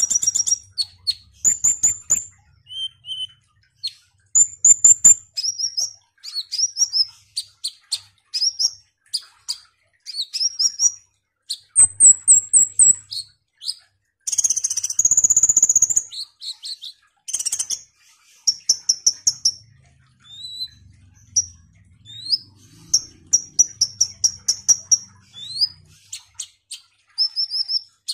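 A male copper-throated sunbird (kolibri ninja) sings in full, fast song: runs of high thin chirps and short rattling trills broken by brief pauses, with one denser, busier run about halfway through.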